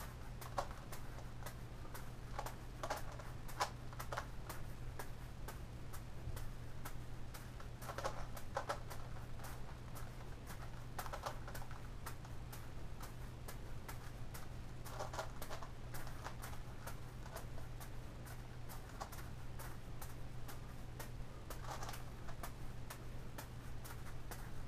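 A steady run of light clicks and taps as small juggling balls land in one hand and a Gigaminx puzzle's plastic layers are twisted, with denser bursts of clicking every few seconds. A constant low hum lies underneath.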